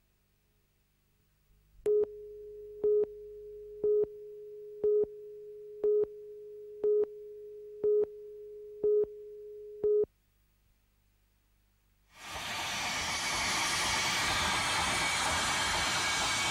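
A countdown-leader tone: a steady mid-pitched tone with a short louder beep each second, nine beeps, cutting off at about ten seconds. After a brief quiet gap, a steady loud hiss of steam from a South Maitland Railways 10-class 2-8-2 tank locomotive, No. 20, blowing steam from its cylinder drain cocks.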